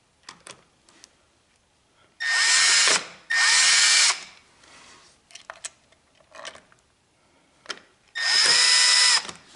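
Milwaukee cordless drill/driver running in three short bursts, each under a second, driving screws into the cover of an ABS plastic junction box. Two bursts come close together about two and three seconds in, and a third near the end. Each is a steady motor whine that falls away as the trigger is released.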